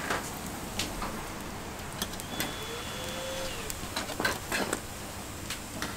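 Metal tongs clicking against a wire rack while flatbreads are picked up, a few sharp clicks scattered through and a cluster about four seconds in, over a steady background hiss.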